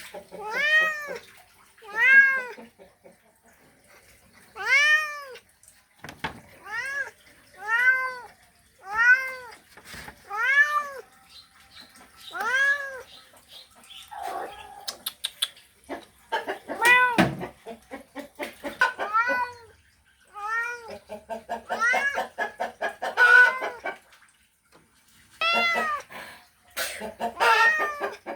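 Cat yowling a mating call: a string of short meows, each rising then falling in pitch, about one a second with pauses. Past the middle there are a few sharp clicks, and the later calls turn rougher and pulsing over a low buzz.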